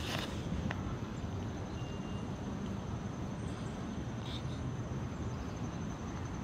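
Quiet outdoor background: a steady low rumble with a faint steady high-pitched tone, and a light click about three-quarters of a second in.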